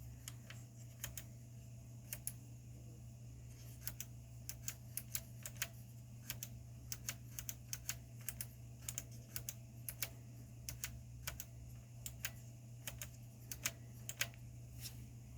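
Sharp, irregular clicks, about two to three a second, over a steady low hum, from an Akai GX-9 cassette deck being worked at its first start before repair.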